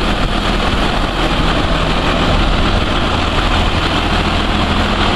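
New Holland TV-140 tractor's turbocharged 7.5-litre six-cylinder diesel engine idling steadily.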